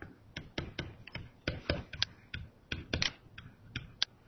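Pen stylus tapping and scratching on a tablet computer screen while writing by hand: an irregular run of light clicks, about four or five a second.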